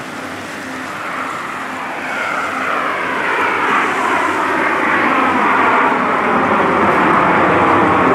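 A formation of nine Aermacchi MB-339 PAN jet trainers flying over, their single Rolls-Royce Viper turbojets building steadily in loudness. From about two seconds in, several whining tones glide downward in pitch as the jets close in.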